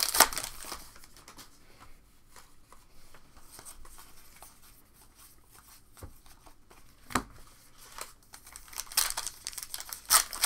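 Trading-card pack wrappers crinkling and tearing as packs are opened, with a light rustle of cards being handled; a sharp tap comes about seven seconds in and the crinkling grows busier near the end.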